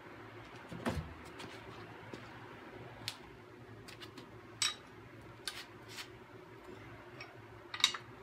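Hand tools clinking: metal sockets and wrenches picked up and set down while a socket is found for the engine block's knock sensor, a few sharp separate clinks, the first with a duller knock about a second in and the loudest near the end.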